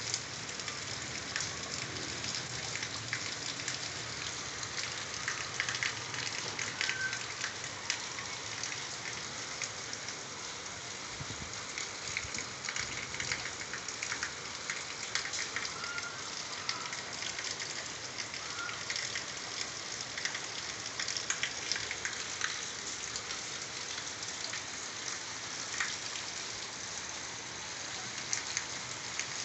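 Steady rain falling on a wet concrete rooftop, with many separate drop hits close by over an even hiss.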